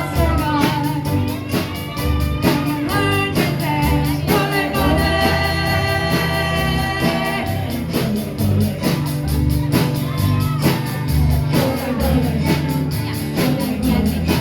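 A live rock and roll band: a singer over guitar, bass and drums keeping a steady beat.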